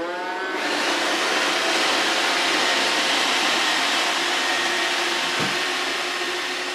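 Vacuum cleaner motor spinning up with a rising whine, then running steadily.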